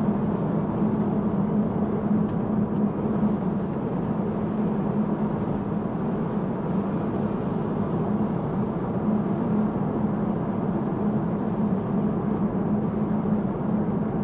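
Road and tyre noise inside the cabin of a moving Tesla Model 3, an electric car with no engine sound. It runs as a steady rush with a constant low drone underneath.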